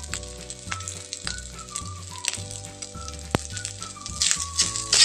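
Fried rice sizzling in a hot metal wok as it is stir-fried, a metal spatula scraping and clicking against the pan, over background music.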